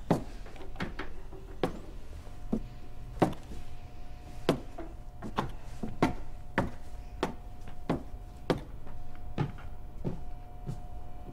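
Footsteps climbing a steep wooden open-tread staircase: a string of sharp knocks, irregular, about one to two a second, over a steady hum that comes in about two seconds in.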